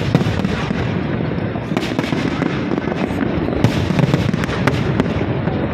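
Aerial fireworks display: shells bursting in a dense, continuous barrage of bangs and crackles, heaviest about two and four seconds in.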